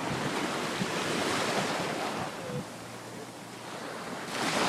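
Ocean surf breaking and washing up the beach in two swells. The second, starting near the end, is the louder.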